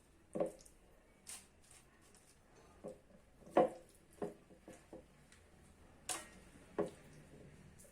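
Marinated chicken pieces being laid by hand into a baking tray: irregular soft taps and knocks, about a dozen, with the loudest about halfway through.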